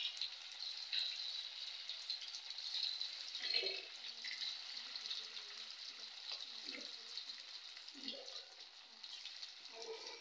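Aval vadas (flattened-rice fritters) deep-frying in hot oil in a kadai: a steady sizzle, with a few soft bumps as more vadas are slid into the oil.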